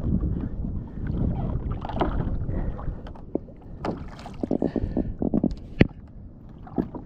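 Water sloshing against a kayak hull, with wind on the microphone. About four seconds in comes a quick run of short knocks and clicks, then one sharper click, as a fish is reeled in and handled aboard.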